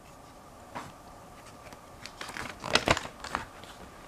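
Plastic Lego bricks clicking and scraping as they are handled and pressed together, with a quick run of clicks in the second half.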